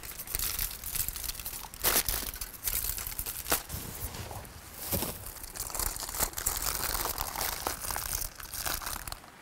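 Aluminium foil crinkling and crackling in irregular bursts as it is folded and crimped into a cooking packet.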